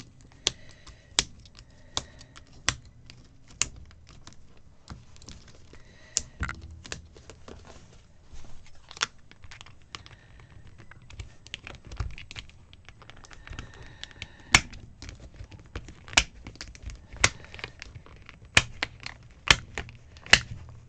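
Plastic planner pages and a stencil being pressed onto and pulled off the rings of a disc-bound planner: irregular sharp clicks and snaps, with some rustling of paper and plastic.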